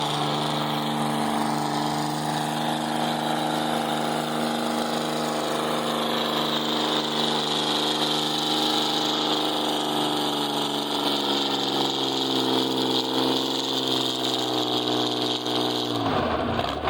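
Tractor engine, a diesel tractor converted to a gasoline engine, running hard under load as it pulls a sled in a tractor pull. The engine note holds steady, sags slowly in the second half as the load builds, then drops off sharply near the end as the run stops.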